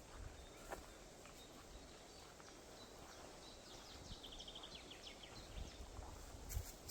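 Faint songbirds in a spring forest, with one bird giving a quick trill of short high notes about four seconds in, over a low rumble of wind.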